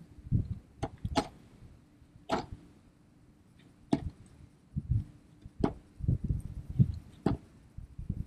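Fishing pole and tackle being handled: a scattering of sharp clicks and knocks, about six in all, over irregular low rumbling bumps.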